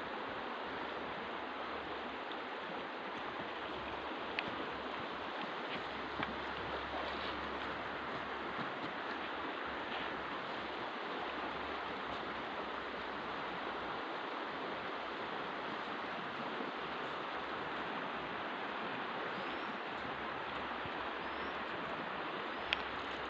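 River water rushing steadily, with a few faint clicks.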